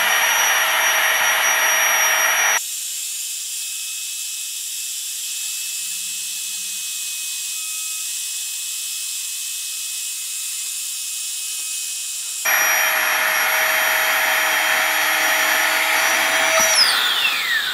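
Flextail Tiny Pump, a miniature battery-powered air pump, running with a steady high whine as it inflates a sleeping pad. For several seconds in the middle the whine sounds higher and thinner. Near the end the pump is switched off and its pitch falls away quickly as it spins down.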